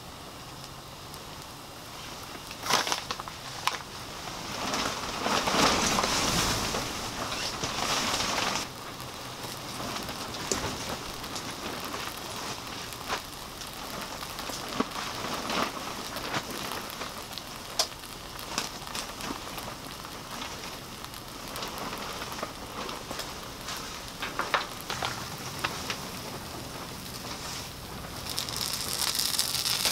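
Omelette eggs sizzling and crackling in a frying pan over a camp stove, with scattered light clicks. The sizzle swells louder for a few seconds about five seconds in and again near the end.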